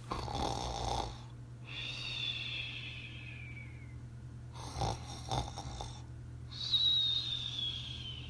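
Snoring, twice over: each time a short, rough snore followed by a long whistle that falls in pitch.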